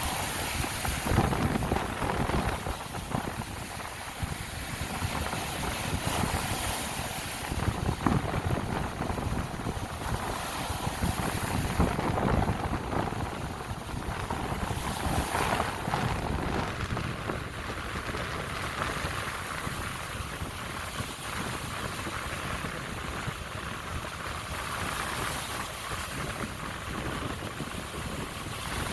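Lake Michigan waves washing onto the beach in repeated swells, with wind gusting across the microphone.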